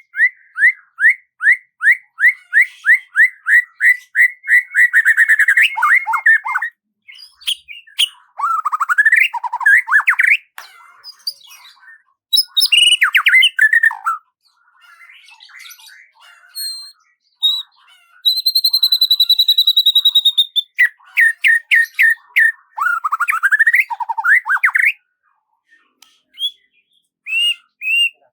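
A songbird singing in varied phrases: a run of repeated chirps that speeds up into a trill, then twisting chirping phrases, and one long steady whistle about two-thirds of the way through.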